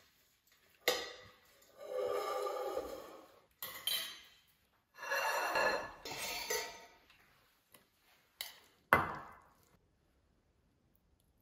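Kitchenware handled on a stainless steel worktop: salad leaves tossed by hand in a steel mixing bowl, a plate set down, and a fork working in a small metal bowl. It comes as a string of separate clinks and knocks with rustling scrapes between them, the loudest a sharp clink with a short ring about nine seconds in.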